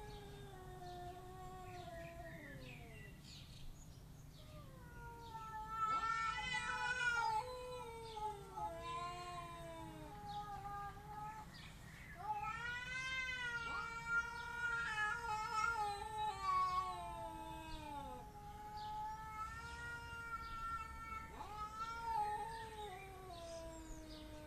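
Cats caterwauling at each other: long, drawn-out yowls that rise and fall in pitch and overlap, swelling loudest twice, about a quarter of the way in and again around the middle.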